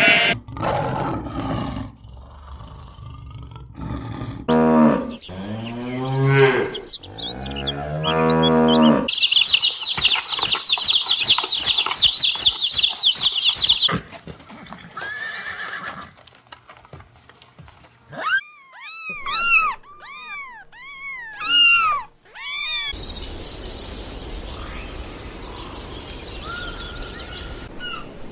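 A string of different animal calls, one after another. First come several low, drawn-out calls, each bending in pitch. Then a dense, high trill lasts about five seconds, followed by a run of quick arching chirps and, near the end, a steady rushing noise.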